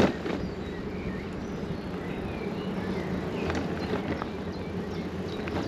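Small birds chirping in short calls over the steady low rush of wind and bicycle tyres rolling along the path.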